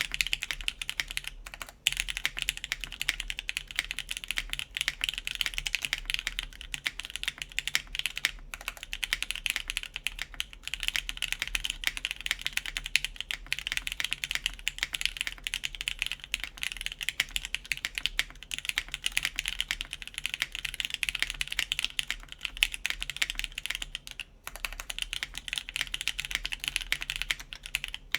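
Continuous typing on an RAE Aurum mechanical keyboard with lubed Gateron Ink linear switches on a carbon fiber plate and GMK keycaps: a dense, rapid stream of key clacks with a few brief pauses.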